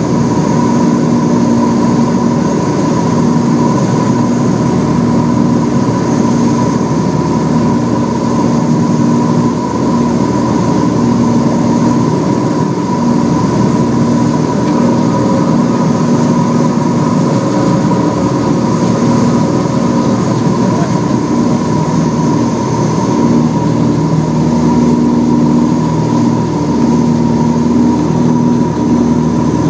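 Cessna 404 Titan's twin turbocharged piston engines and propellers droning steadily, heard from inside the cockpit on final approach.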